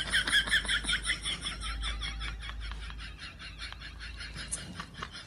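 A fast run of short, high-pitched chirping calls from an animal, several a second, fading gradually, over a faint low rumble.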